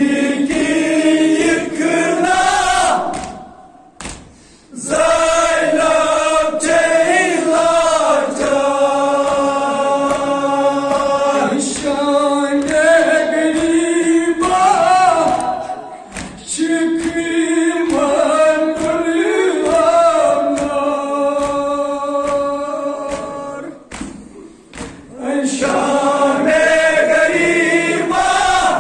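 A group of voices singing a Kashmiri noha, a Muharram lament, in long chanted phrases with short breaks between them, over a faint regular beat of thuds.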